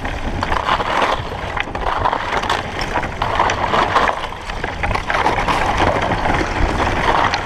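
Kayak being paddled through broken river ice: noisy swells of paddle strokes and ice scraping on the hull, about one a second, over a steady low rumble.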